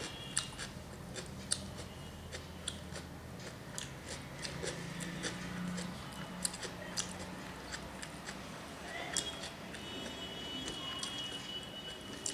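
Close-up eating sounds: fingers mixing rice and fish curry on a steel plate, and chewing with many short, sharp wet clicks.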